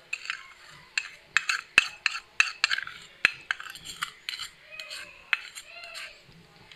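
A metal spoon scraping and tapping against a small bowl held over a glass as sugar is scraped out: an uneven run of sharp clinks and scrapes, loudest around two seconds in.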